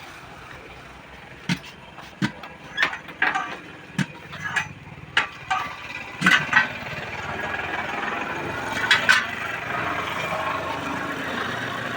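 Sharp metal knocks and clanks from working a pickup truck tyre onto its steel rim, about ten strikes roughly half a second apart. After that comes a steady rushing noise with a couple more knocks.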